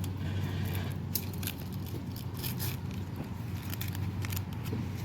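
Dry corn husks crackling and snapping in short bursts as they are torn and peeled off an ear of corn by hand, over a steady low hum.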